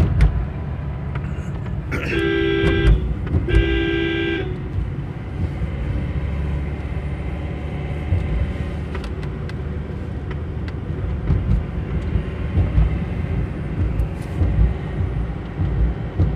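Car running along a road, heard from inside the cabin as a steady low rumble, with a car horn sounding twice, about two and four seconds in, each blast lasting about a second.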